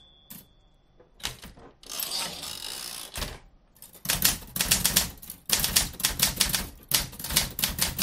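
Typewriter typing: keys clacking, a few scattered strikes and a short rattling stretch in the first few seconds, then a fast, steady run of keystrokes from about four seconds in.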